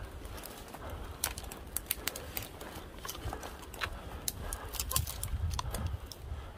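Twigs and branches snapping and crackling in irregular sharp clicks as someone pushes through dense woody brush, over a low rumble of body movement.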